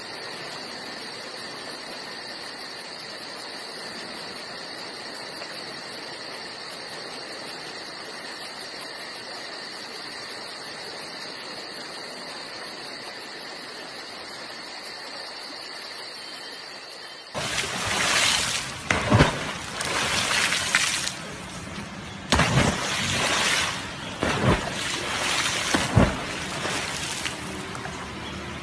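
A steady hiss with high, even tones runs for the first two-thirds. Then loud, irregular surges of rushing and splashing water take over, with several sharp peaks.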